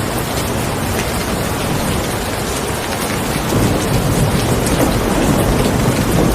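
Steady rain falling, with a low rumble of thunder swelling about three and a half seconds in.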